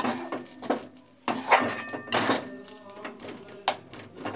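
Metal spatula scraping and clinking against a steel kadai as a thick, dough-like mixture of dry fruits, gond and ghee is stirred, in a few irregular strokes with brief metallic ringing.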